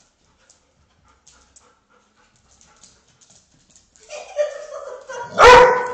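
Airedale terriers at play: near silence at first, then about four seconds in a dog starts vocalising in a drawn-out whine, ending in one loud bark near the end.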